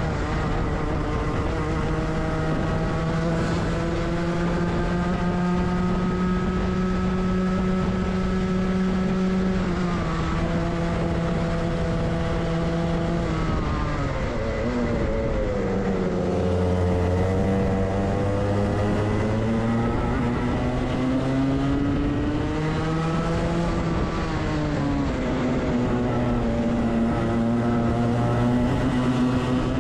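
Onboard sound of a Rotax two-stroke kart engine at racing speed. It climbs steadily in pitch on the straights and drops sharply when the throttle is lifted for corners, most deeply about halfway through, then pulls up through the revs again.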